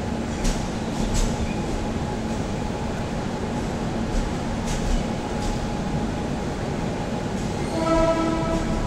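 Passenger coach of an Indian Railways express rolling slowly into a terminus: a steady rumble from the running gear with a few sharp knocks from the wheels and couplings. Near the end a horn sounds briefly, for about a second.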